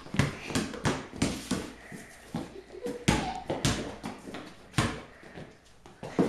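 Basketball being bounced on a hard indoor floor: irregular thumps about three a second, thinning out near the end.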